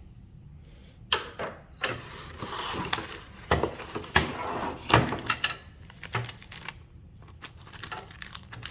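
Cardboard box and packaging being handled and opened: scattered knocks and clicks with a stretch of rustling, the sharpest knocks about three and a half to five seconds in.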